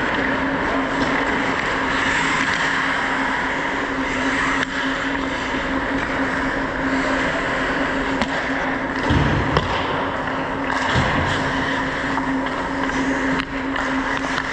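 Ice hockey play heard from a player's own point of view: a steady rush of skate and air noise over a steady low hum, with scattered sharp clicks of sticks and puck and two dull thumps about nine and eleven seconds in.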